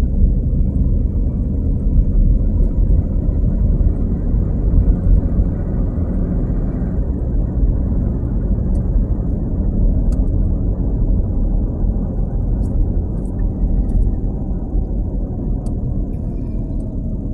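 Steady low rumble of road and engine noise inside a moving car's cabin, with a few faint clicks in the second half.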